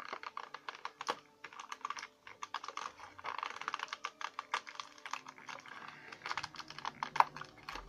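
Crinkling and clicking of a clear plastic blister tray as a small action figure is pried out of it by hand, in quick irregular bursts with a sharper click near the end.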